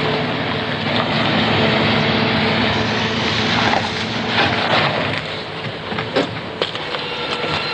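A car drives across a gravel construction site, its engine running steadily with the rumble of the tyres. About five seconds in the sound drops, as the car slows or stops, and a few short clicks and knocks follow.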